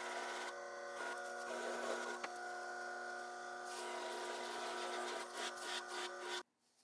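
Small hobby bench grinder running as a buffer, its cotton polishing wheel charged with white compound and buffing a scratch out of a watch crystal: a steady motor hum with a scrubbing hiss from the wheel on the work. It cuts off abruptly near the end.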